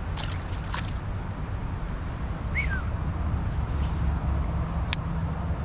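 Water sloshing over a steady low rumble, with a few sharp clicks and one short chirp, rising then falling, about two and a half seconds in.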